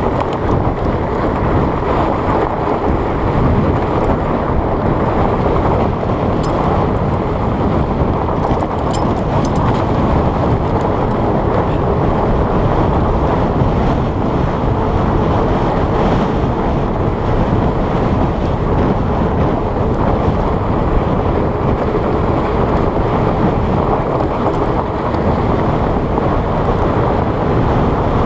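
Steady wind rushing over the action camera's microphone at downhill speed, mixed with the rolling hum of a fat bike's wide tyres on gravel, with a few faint ticks.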